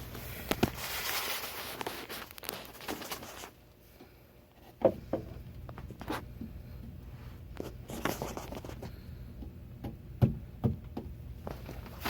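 Hammer tapping cable staples into wood, a handful of scattered, irregular knocks, the sharpest about five and ten seconds in. Scuffing and rustling of movement in the cramped space are heard between the blows.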